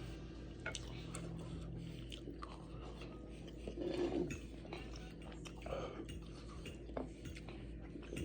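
Eating at a plate: light clinks and clicks of cutlery with chewing sounds in between.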